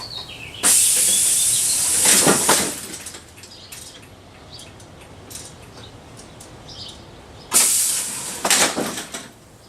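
Pneumatic air cylinder on a PVC scissor hinge prop cycling twice: each time a sudden loud hiss of compressed air lasting about two seconds, ending with knocks and rattles as the linkage reaches the end of its travel.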